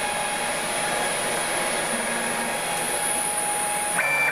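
Steady whirring hum from a 6040 CNC machine and its electronics. About four seconds in, a short, steady-pitched whine starts suddenly, consistent with the stepper motor jogging the table.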